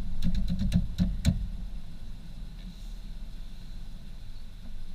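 Car cabin road and engine noise, a steady low rumble while driving slowly, with a quick run of about seven sharp clicks in the first second and a half.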